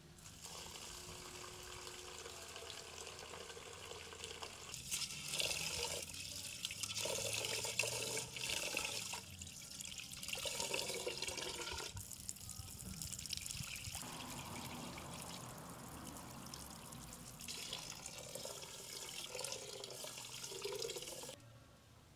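Water running from an outdoor standpipe tap into an aluminium cooking pot and splashing onto concrete as the pot is rinsed, the sound changing as the pot fills and is swirled. The flow stops suddenly near the end.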